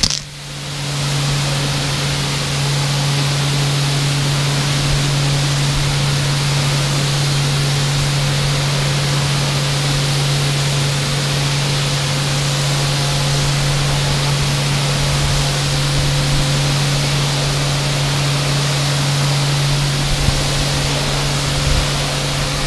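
Kärcher K4 electric pressure washer running under load with a steady hum while a snow foam lance sprays a continuous hissing jet of foam onto the car. The spray comes up to full pressure within about the first second, then holds steady.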